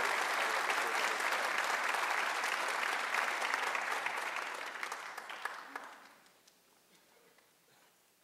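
Audience applauding, the clapping fading out and stopping about six seconds in.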